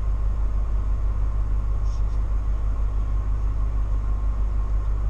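Coach bus's diesel engine idling, heard from inside the driver's cab as a steady low rumble.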